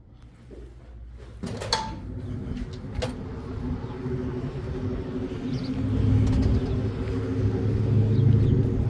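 A door latch clicks as a door opens onto the outdoors, followed by a second click. A motor vehicle's engine runs with a steady low rumble that grows louder over the last few seconds.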